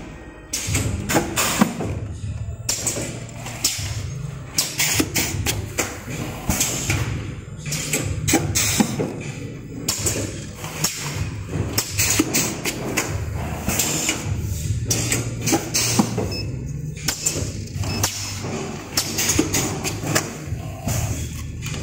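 Plastic test tube tray making machine running: a dense, irregular stream of knocks and clatter from its press and moving parts over a low hum.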